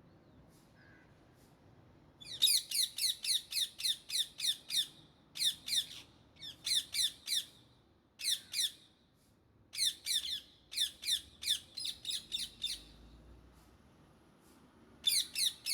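Indian ringneck parrots squawking in bouts of rapid, harsh, repeated calls, about four to five a second, with short pauses between bouts. The calls begin about two seconds in.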